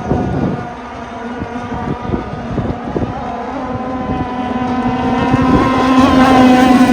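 Gasoline engine of an RC power boat running at speed on the water, with a steady engine note that grows louder over the last few seconds.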